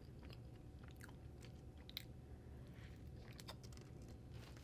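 Faint close-up chewing of a cream-filled donut, with scattered small wet mouth clicks.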